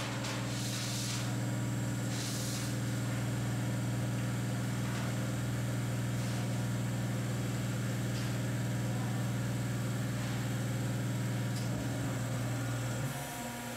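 Hydraulic guillotine plate shear running with a steady, loud mechanical hum, with a few short hisses in the first seconds. The hum changes a second before the end.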